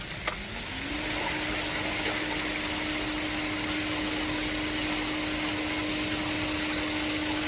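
Pool filter pump motor switched on: a click, then a hum that rises in pitch over about the first second as the motor spins up and holds steady, with water rushing through the sand filter on backwash.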